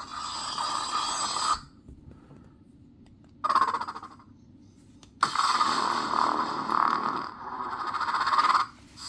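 Lightsaber soundboard playing sound-font effects through the hilt's small speaker as fonts are cycled. A blade sound stops about one and a half seconds in, a short sound comes at about three and a half seconds, and a sudden start just after five seconds runs on for about three seconds before cutting off near the end.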